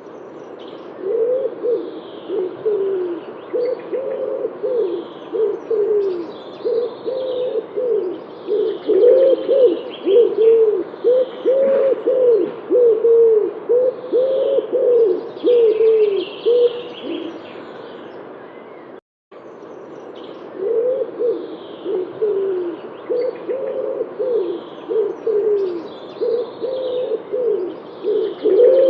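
Pigeons cooing in a quick run of short, rounded, repeated coos, with faint higher chirping of small birds behind them. The cooing stops for a few seconds past the middle, with a brief total cut-out, then starts again.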